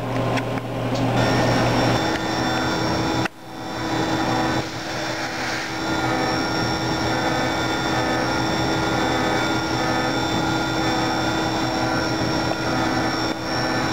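Haas VF-2 CNC vertical mill running a cut: steady machining noise with constant spindle whine. The sound drops out briefly about three seconds in and comes back with a different set of steady tones.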